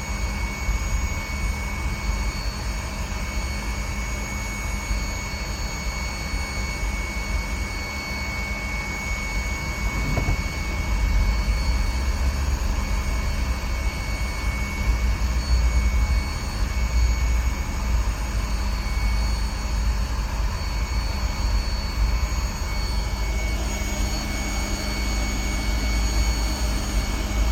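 2010 GMC engine running steadily with a low rumble and a thin steady whine above it, a little louder from about ten seconds in.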